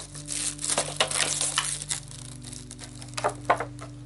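Clear plastic wrapping film crinkling and rustling as it is pulled off a cardboard box, dense for the first couple of seconds, then two sharp crackles near the end.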